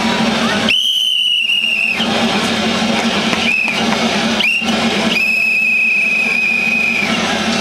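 A whistle blown in loud, steady blasts: one of about a second, two short toots, then a longer blast of about two seconds.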